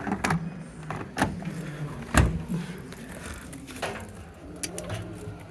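Several sharp clicks and knocks at uneven intervals, the loudest about two seconds in, over a low steady hum.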